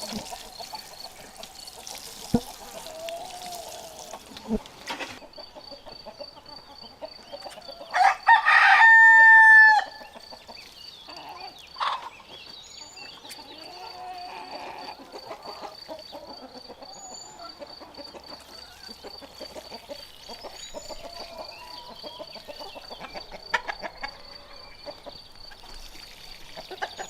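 A rooster crowing once, loud and drawn out for about two seconds, about eight seconds in, with fainter clucking from the flock around it.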